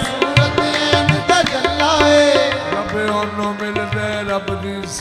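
Devotional qawwali-style music: a harmonium holds sustained chords over a steady hand-drum beat and hand claps, with a male voice singing in places.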